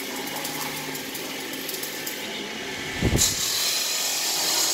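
Workshop machinery noise: a steady hiss with a faint low hum, a low thump about three seconds in, then a louder high hiss.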